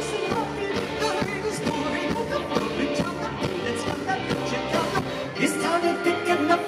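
Live rock band playing with a steady drum beat while a male lead singer sings, heard from the audience.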